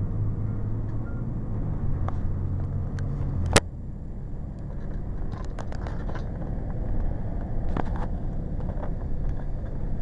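Cummins ISC straight-six diesel of a 2002 Blue Bird CS transit bus running, heard from inside the passenger cabin. A sharp knock comes about three and a half seconds in, after which the engine hum drops lower, with scattered light rattles afterwards.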